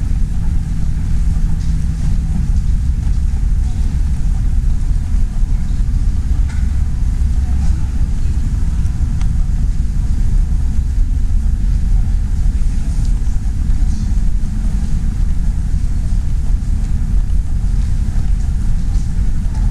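Steady low rumble of background noise in a large, nearly empty terminal hall, with a faint hiss over it.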